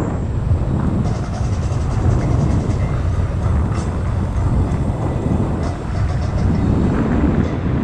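Ninebot Z10 electric unicycle ride: a steady low rumble of wind buffeting the camera microphone and tyre noise on pavement, with a few faint rattling ticks in the first half.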